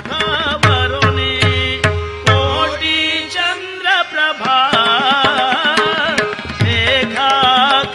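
Indian devotional song music: a wavering, ornamented melodic line over hand-drum strokes, the low drum strokes dropping out for a few seconds in the middle before returning.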